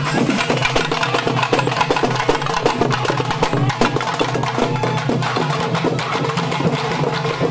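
Traditional Tamil procession drumming: double-headed barrel drums and a hand-held frame drum beaten in a fast, steady rhythm, with a steady low tone underneath.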